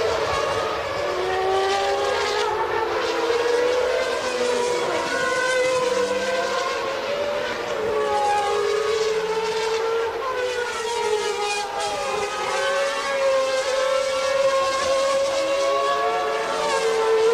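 Several Formula One car engines running at high revs together, their overlapping high-pitched notes rising and falling in pitch throughout.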